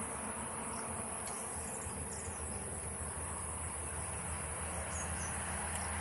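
Crickets trilling steadily at a high pitch, over a steady low hum.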